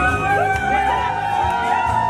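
Loud live band music from the stage, a steady beat under sliding melodic lines, with crowd voices mixed in.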